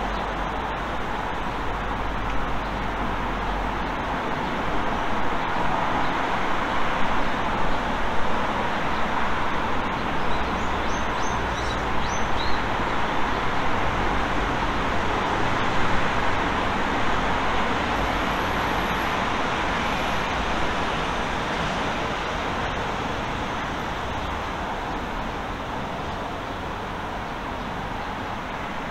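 Steady hum of city road traffic, with a few faint high chirps about ten to twelve seconds in.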